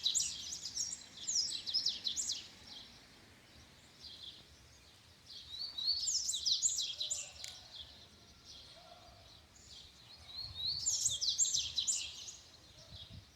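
Double-collared seedeater (coleiro) singing: three phrases of rapid, high, twittering notes a few seconds apart, the first already under way at the start.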